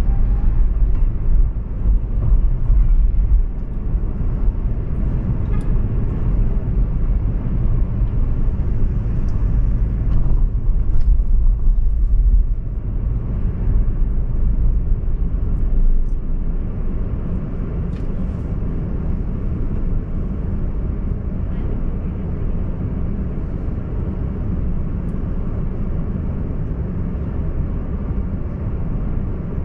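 Steady low rumble of a car driving on city streets, tyre and engine noise, a little louder in the first half.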